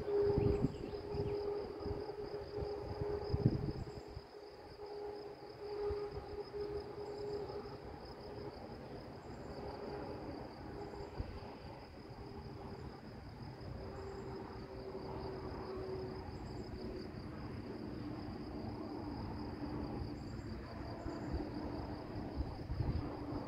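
Insects chirring steadily, a fine pulsing buzz. Wind rumbles on the microphone in the first few seconds, with a faint low hum underneath.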